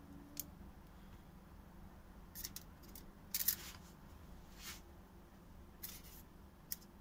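Short, scattered crinkles and rustles as sliced boiled pork tongue is laid by hand into a foil-lined baking dish, the aluminium foil lining rustling under the fingers; the loudest comes about halfway through. A faint steady low hum lies underneath.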